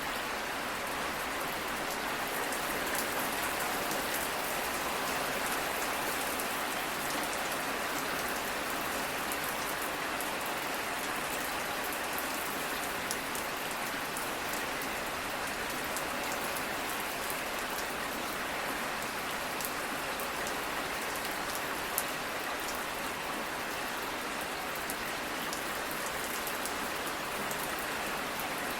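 Steady rainfall, a continuous even hiss of rain with scattered individual drops pattering on a surface.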